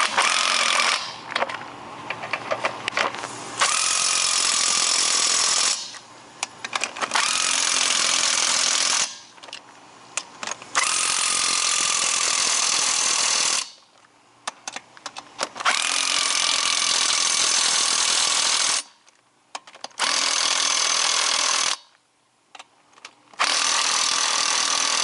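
Impact wrench driving lug nuts onto a car wheel, running in repeated bursts of about two to three seconds with short pauses between them.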